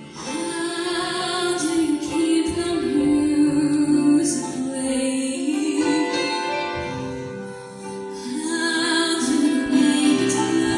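A female soloist singing into a handheld microphone over instrumental accompaniment.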